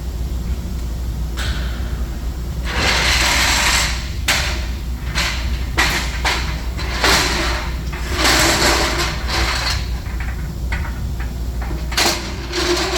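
Shop tools and equipment being handled: a run of sharp knocks and clanks and several longer scraping, sliding noises, over a steady low hum.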